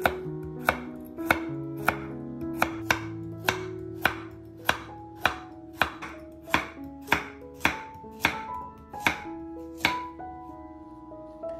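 A chef's knife slicing a raw carrot into rounds on a wooden cutting board: crisp knocks of the blade on the board, about two a second, stopping about ten seconds in.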